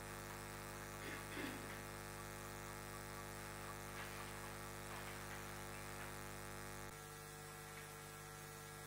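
Steady electrical mains hum picked up by the meeting-room microphone system, with a few faint brief sounds. The deepest part of the hum drops away about seven seconds in.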